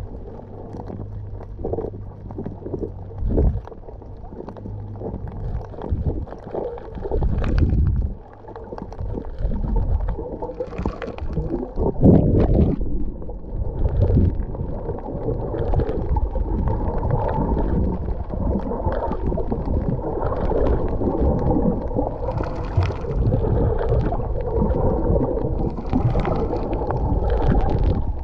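Underwater noise picked up by a camera held below the surface: a low rumble of moving water with irregular swishes, growing louder about ten seconds in.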